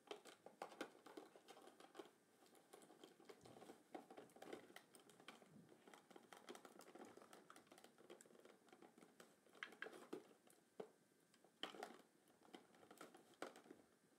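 Faint, scattered crinkling and small clicks of a toy box's clear plastic tray and twist ties being worked loose by hand to free an action figure.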